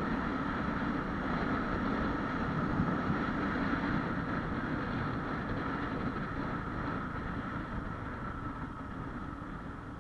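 Honda Wave 125X's single-cylinder four-stroke engine running steadily while riding, with wind rushing over the microphone; the drone grows a little quieter towards the end.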